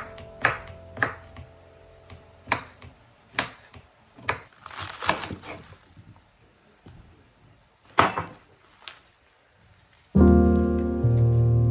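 Kitchen food-prep handling noises: irregular sharp knocks and clicks with a short scrape or rustle about five seconds in, the strongest knock near eight seconds. Soft piano music comes in near the end.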